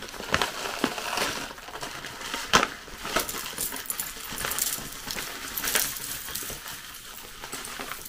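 Dry breakfast cereal flakes poured from a foil-lined pouch into a glass bowl: a continuous rattling patter of flakes landing on the glass, with a few sharper clicks along the way.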